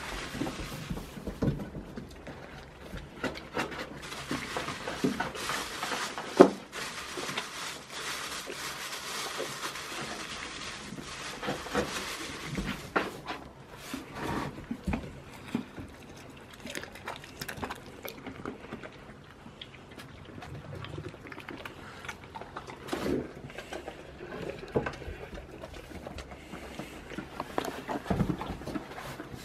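Water falling or splashing steadily for about twelve seconds, stopping about thirteen seconds in, amid scattered knocks and clatter; one sharp knock stands out about six seconds in.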